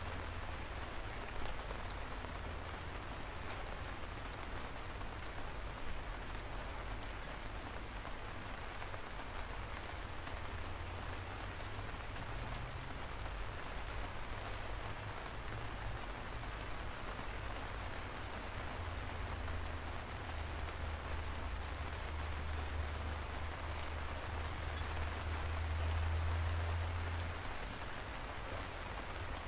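Steady rain falling, an even hiss scattered with small drop ticks. A deep low rumble runs underneath, growing louder in the second half and peaking near the end.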